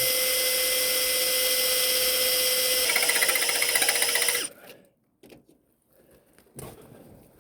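Handheld power tool running with a steady high motor whine. About three seconds in the sound turns to a fast rattle, then it stops about a second and a half later, leaving a few faint knocks and clatter.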